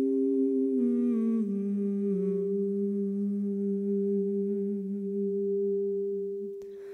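Meditative music: a voice humming a slow melody that steps down and settles on a low note, over a steady drone tone. The humming stops near the end while the drone holds.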